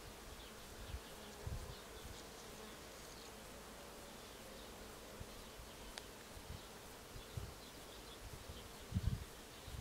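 Wind buffeting the microphone in a few short low thumps, the strongest near the end, over a faint steady buzzing drone.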